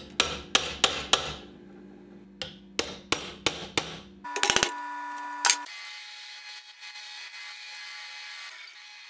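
Hammer tapping a punch set in the bolt holes of a rudder port flange to mark a hardwood block: sharp metal taps in two quick runs, then a fast flurry of strikes and one last tap. After that a drill press starts and runs steadily.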